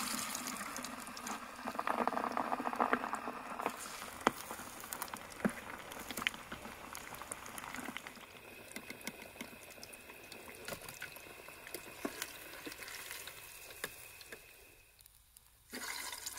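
Masala-coated fish frying in hot oil in a small camping pot: a steady sizzle with scattered crackles and pops, loudest over the first few seconds and slowly dying down.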